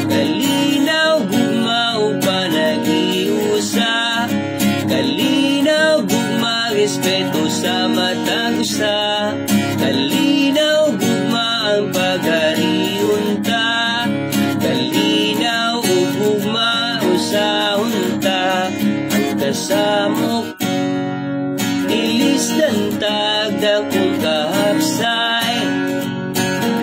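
Acoustic guitar strummed in chords, with a man singing over it; the playing breaks off for a moment about two-thirds of the way through, then carries on.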